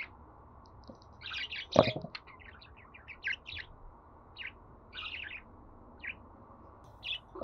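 Budgerigars chirping and warbling in short, scattered bursts with quiet gaps between them. A single sharp click about two seconds in is the loudest sound.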